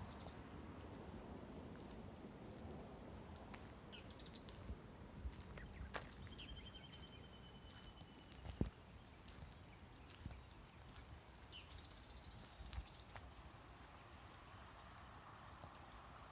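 Faint outdoor ambience of insects and birds: a high, evenly pulsing insect chirp, a few short bird chirps, and one long, slightly falling whistled bird note a little past the middle. A single sharp knock comes about halfway through.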